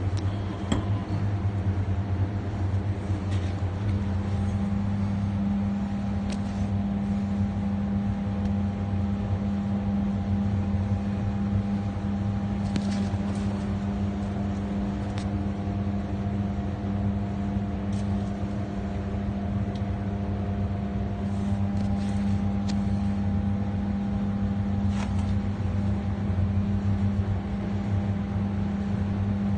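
A steady low machine hum with a few light clicks scattered through it.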